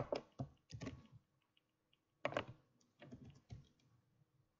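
Computer keyboard keys tapped in a few short clusters of keystrokes as a web address is entered.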